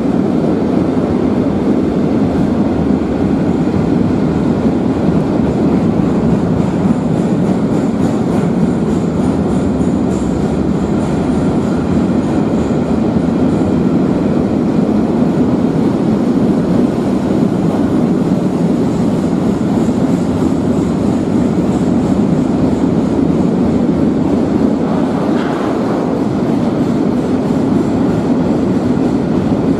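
A train rolling past: a steady, loud rumble of wheels on rails, with a faint high wheel squeal above it for a while in the middle.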